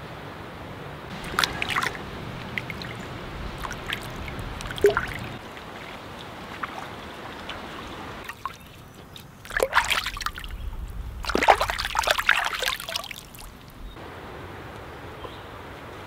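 Water sloshing and splashing in bursts as clams are rinsed by hand in a shallow stream, loudest about ten to thirteen seconds in, over the steady trickle of the stream.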